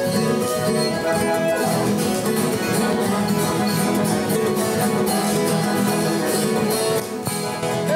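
Live instrumental country music: a viola caipira (Brazilian ten-string folk guitar) picked and strummed in a lively tune over held notes from a second instrument, easing off near the end.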